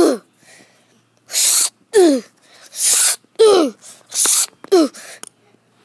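A person's voice crying out four times, each cry a short sharp yelp sliding steeply down in pitch, in turn with short hissing bursts.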